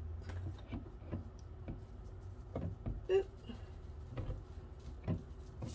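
Plastic dish soap bottle being handled and turned over in the hands: scattered light clicks, taps and crinkles of the plastic.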